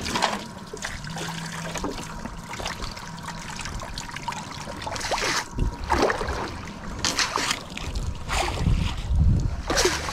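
Water splashing and trickling as a wet cast net is hauled up out of the water, with several brief sloshes in the second half.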